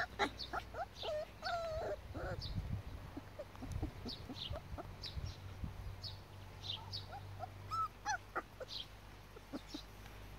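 Young border collie puppies, four to six weeks old, whimpering and giving short yips, most of them in the first two seconds.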